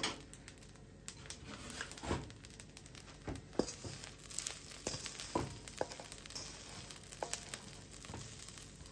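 Wooden spatula scraping and turning egg fried rice in a wok: irregular scrapes and light knocks over a faint sizzle.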